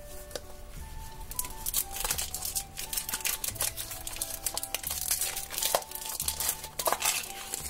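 Clear cellophane wrapper crinkling and tearing as it is peeled off a small cardboard toy box, over light background music.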